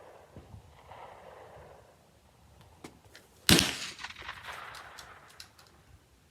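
AR-15 rifle firing a single shot about halfway through, the report echoing away over a second or so.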